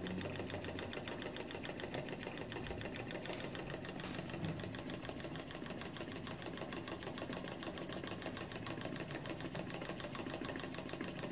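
Small model Stirling hot-air engine running steadily, giving a rapid, even mechanical ticking.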